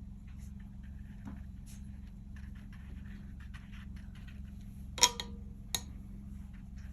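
Soft dabs and scrapes of a watercolour brush on paper, with a sharp tap about five seconds in and a lighter one just after, over a steady low hum.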